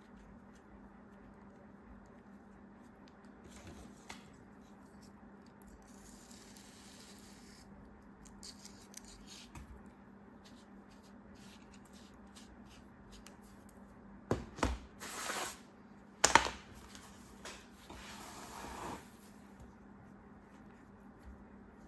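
Packaging being handled and opened by hand: soft scattered rustling, then past the middle a louder cluster of sharp clicks and short scraping, tearing noises, over a faint steady hum.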